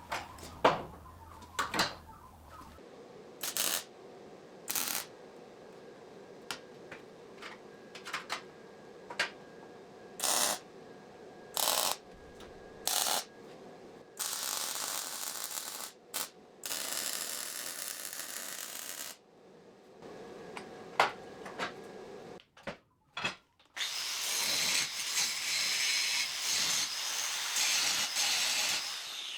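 Metalworking in a workshop: a run of sharp metal knocks and clanks, then three bursts of a power tool cutting or drilling steel, the last and longest near the end.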